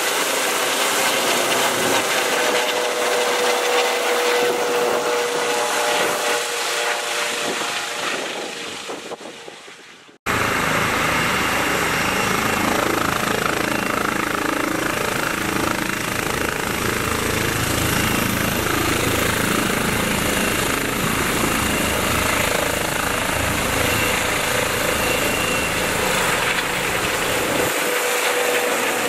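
Medevac helicopter flying off, its rotor and engine noise fading away over the first ten seconds. An abrupt cut follows to a snowplow truck driving with its blade down, a steady run of engine and road noise.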